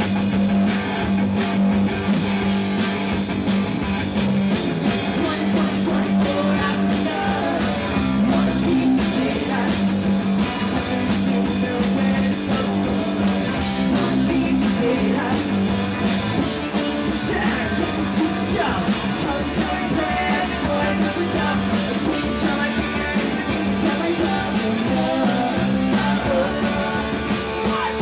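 Live rock band playing, with electric guitar and a woman singing lead.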